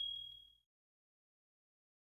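Tail of a bright bell ding sound effect, its single high ringing tone pulsing as it dies away within the first half second.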